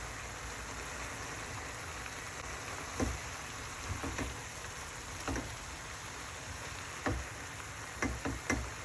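Steady hiss of a pan of coconut-milk sauce simmering under a running kitchen extractor hood, with a few short knocks of a spoon against the pan as it is stirred.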